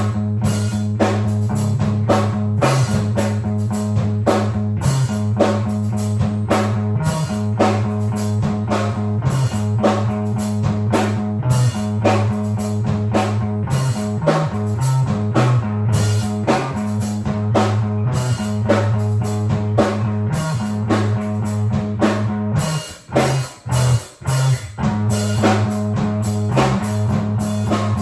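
Rock band demo recording: drum kit keeping a steady beat under bass and guitar. About three quarters of the way through, the band stops short in a few brief breaks before carrying on.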